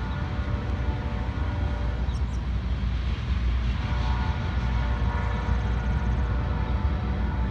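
Freight train cars rolling past: a steady low rumble of wheels on rail, with faint steady ringing tones above it.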